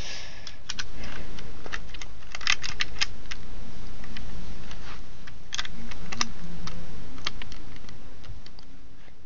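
LEGO bricks being handled and pressed onto a plate frame: a run of irregular plastic clicks and clacks.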